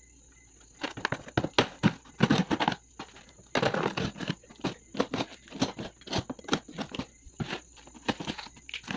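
Kitchen knife slitting packing tape and cutting through a cardboard box: irregular scraping and tearing of tape and card with sharp clicks, starting about a second in.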